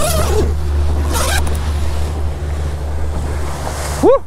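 Boat under way: a steady low engine drone under rushing water and wind buffeting the microphone. Near the end a man's short loud whoop.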